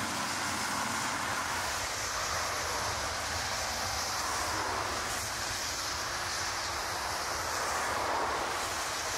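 Jet airliner's turbofan engines running during a high-speed roll on a wet runway: a steady roaring hiss.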